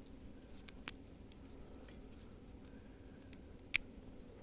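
A few light, sharp clicks, two close together about a second in and one near the end, over a faint steady low hum.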